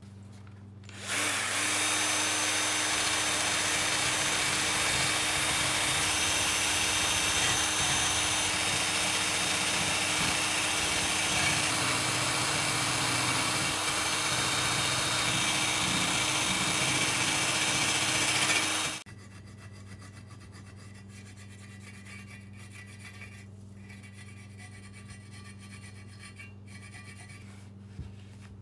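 Small cordless grinder with a fiber disc running steadily against the aluminum sump cover of a Briggs & Stratton Quantum engine, scrubbing off old gasket material. It starts about a second in and stops abruptly after about eighteen seconds, followed by faint rubbing as the surface is wiped with a cloth.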